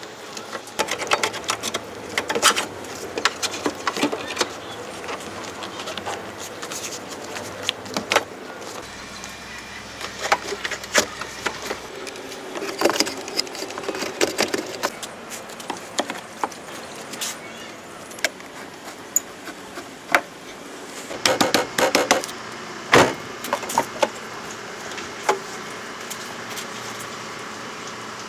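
A run of irregular sharp clicks and knocks, clustered in bursts, over a low steady background.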